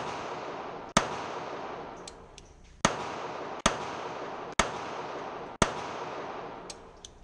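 Seecamp .32 ACP pocket pistol fired six times at uneven intervals, each shot echoing in the enclosed range, with a few faint clicks in between.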